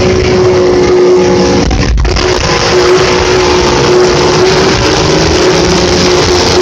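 Vintage snowmobile engines running at speed: a steady engine drone over a heavy low wind rumble on the microphone, with a brief dropout about two seconds in.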